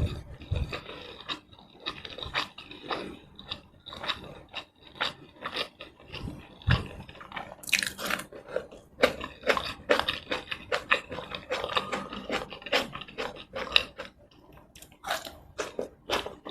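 Close-miked eating of tomato rice and chicken in red chilli sauce: biting and chewing with many quick wet mouth clicks and crunches, and a brief sharp hiss about halfway through.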